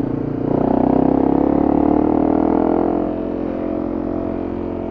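Honda CRF250M's single-cylinder four-stroke engine pulling harder and rising in pitch from about half a second in, then easing off near the three-second mark.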